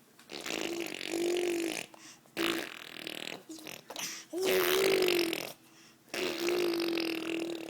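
A baby blowing raspberries, buzzing her tongue and lips to make fart-like noises again and again: about five buzzes in a row, the longest a second or more, several with her voice humming through them.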